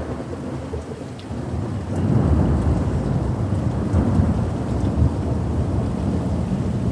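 Thunder rumbling over steady rain, swelling to a loud, low rolling rumble about two seconds in.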